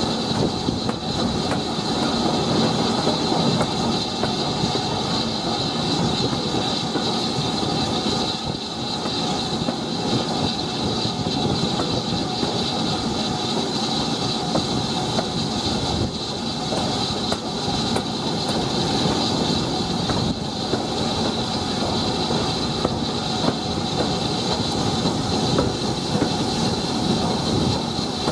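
Steam train hauled by a BR Standard Class 4 2-6-4T tank engine running along the line, heard from the carriage right behind the locomotive: a steady rumble of wheels on rail with clickety-clack and a steady high hiss over it.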